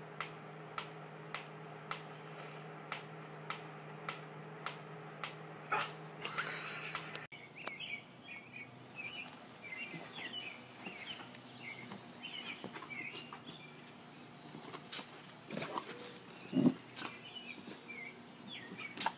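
Wind-up pendulum metronome ticking steadily at about five ticks every three seconds, followed by a louder burst of noise about six seconds in. The sound then cuts to a faint outdoor background with short high chirps and a few brief louder sounds.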